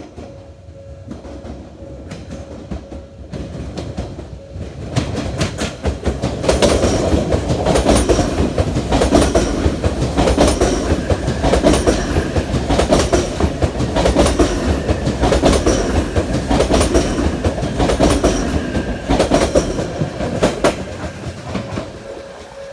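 Odakyu Electric Railway train passing over rail joints: its wheels strike the joints in paired 'dadan, dadan' beats over a steady rumble. The sound builds from about five seconds in, is loudest through the middle, and fades near the end.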